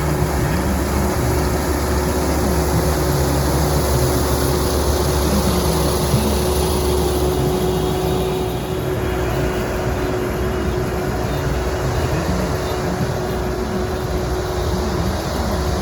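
Farm machine's diesel engine running steadily, a low rumble with a constant hum.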